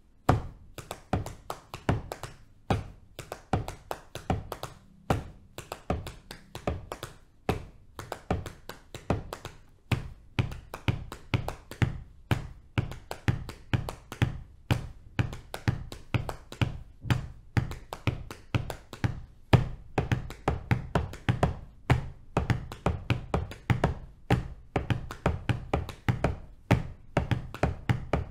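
Body percussion: hands patting on the thighs in a five-against-four-against-three polyrhythm, a dense run of overlapping taps. Deeper thumps join about ten seconds in, filling out the layered pattern.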